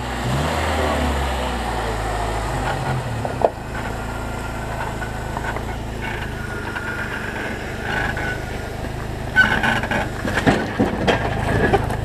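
Jeep Wrangler TJ engine running at low revs as it crawls down over rock ledges. There is a single sharp knock about three and a half seconds in, and a run of knocks and scrapes over the last two and a half seconds, which those watching take for the bumper hitting the rock.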